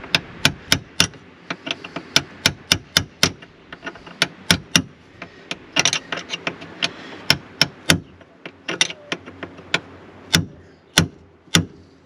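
Small hammer tapping on a piece of aluminium held against a fuel-tank fitting, driving its rubber grommet down into the tank: dozens of sharp taps, two or three a second, in short runs with brief pauses.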